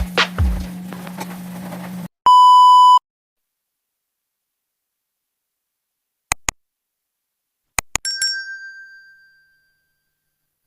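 A short electronic beep at one steady pitch, then silence broken by a few sharp clicks and a bright ding that rings and fades over about a second and a half.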